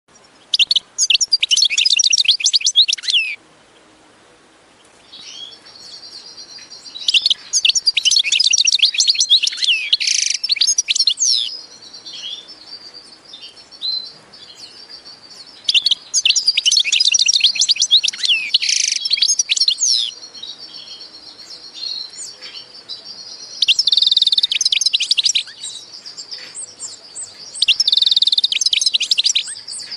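Songbird singing in bursts of rapid, high chirping phrases, five of them, each lasting two to four seconds. A steady high tone runs underneath from about five seconds in.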